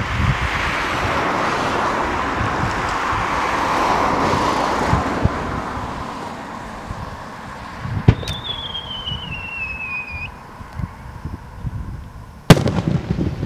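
A single aerial firework shell: a sharp launch report about eight seconds in, a thin whistle falling in pitch for about two seconds as it climbs, then a loud bang near the end as it bursts. Before that, a broad rushing noise swells and fades over the first half.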